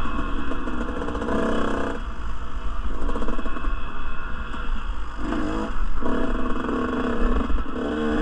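Dirt bike engine running under way, revving up and easing off several times as the rider works the throttle.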